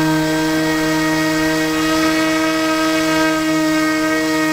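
HobbyKing Swampdawg RC airboat's electric motor and propeller running at a steady throttle, heard up close from on board: a strong, even drone that holds one pitch.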